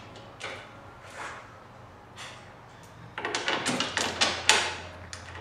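Metal hardware being handled as bolts are hand-tightened through the steel seat deck and supports of a golf cart rear seat kit. A few soft scrapes come first, then a quick run of short scraping and rattling strokes begins about three seconds in.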